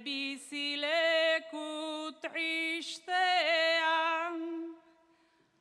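A woman singing an improvised Basque bertso a cappella, a single unaccompanied melodic line in slow phrases with long held notes. The phrase ends near the end, leaving a short pause before the next line.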